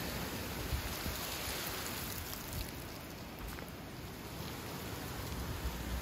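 Wind gusting through trees, with dry fallen leaves rustling and skittering over a gravel path. It eases a little around the middle and picks up again near the end.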